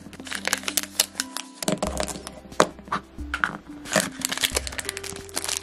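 Plastic Mash'ems toy capsule being cut at its tape seal with scissors and pulled apart, with many sharp plastic clicks and wrapper crinkles, over background music.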